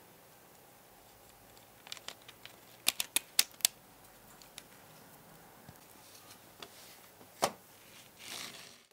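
Small sharp plastic clicks and taps as the chassis and interior tub of a 1:18 scale Lamborghini Reventón model car are handled. A quick run of clicks comes about three seconds in, a single louder click comes later, and a short rustle follows near the end.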